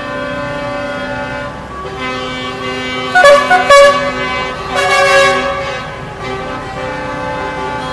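Horns of parade tractors and other vehicles honking: held steady horn tones, with a few louder short blasts around the middle.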